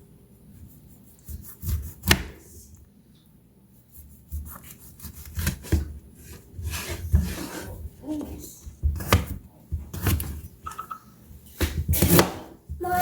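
Knife cutting lemons on a cutting board: short sawing strokes through the fruit and irregular knocks of the blade against the board.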